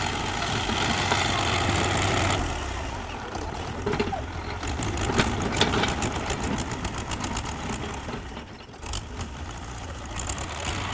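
Heavy construction machine's engine running, with a run of sharp clanks and rattles from about two seconds in until near the end.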